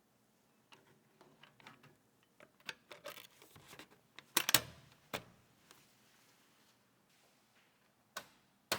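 Computer parts being handled and fitted by hand: a run of small clicks, taps and rustles, with a cluster of sharper knocks about four and a half seconds in and two crisp clicks near the end.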